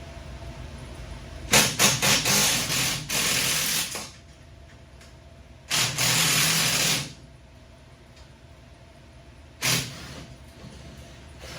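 Pneumatic air tool running in bursts: a few quick spurts that run into a two-second run, another run of about a second, and one short spurt near the end.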